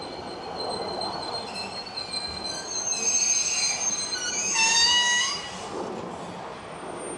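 E217-series electric commuter train arriving and braking to a stop at a platform, with high-pitched squealing from brakes and wheels. The squeal grows louder about three seconds in, and the loudest part, about five seconds in, is a set of falling tones as the train slows.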